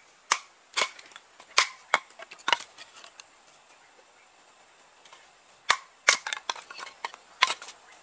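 Machete blade striking a short piece of wood held upright on a tree stump, chopping and splitting it: about a dozen sharp, loud knocks, a few spaced out at first, then a quicker run of strikes after a short pause.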